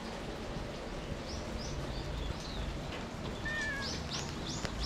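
Birds chirping in short, high, repeated calls, coming faster in the last second, over a steady background hiss.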